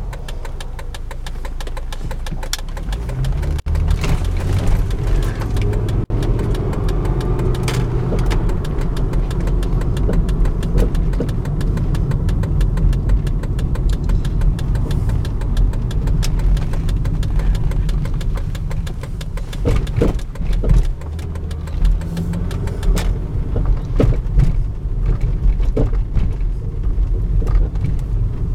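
Volvo S60 being driven, a steady low running and road rumble with irregular sharp knocks coming through it, a few louder ones about two-thirds of the way in. This is the knocking the car makes when driving.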